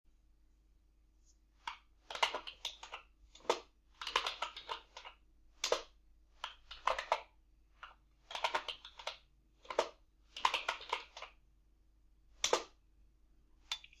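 Typing on a computer keyboard: short runs of rapid key clicks separated by pauses of about half a second to a second.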